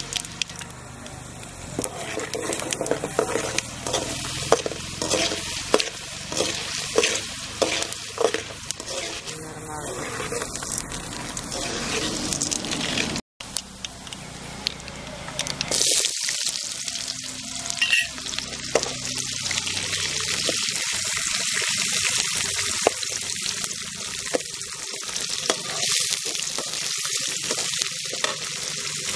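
Mustard seeds, chana dal and urad dal frying in hot oil for a tempering, crackling and sizzling. After a brief gap about 13 seconds in, the sizzle is louder and steadier.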